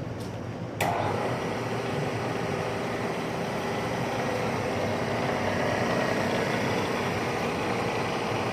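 A Bridgeport 2J vertical milling machine's 2-horsepower variable speed head switches on about a second in with a click, then the spindle motor and drive run steadily with a faint whine.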